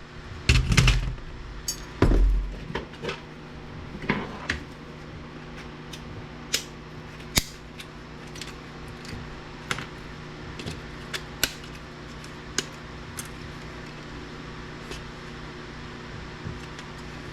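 Scattered clicks and knocks of small plastic and metal parts being handled and prised at while dismantling a DVD player's disc tray mechanism, with a few heavier thumps in the first two seconds. A steady low hum runs underneath.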